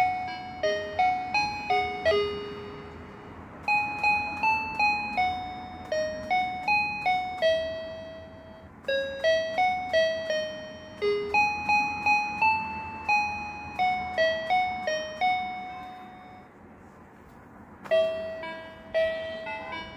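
Children's floor piano mat sounding electronic piano-tone notes one at a time as its keys are stepped on, about two or three notes a second, picking out a simple tune in short phrases. The notes stop for about two seconds near the end, then start again.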